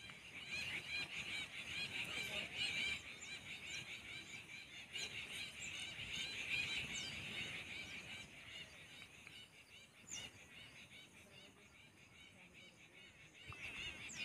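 A dense chorus of many small birds chattering and chirping together, quieter for a few seconds in the second half, with a few higher single chirps.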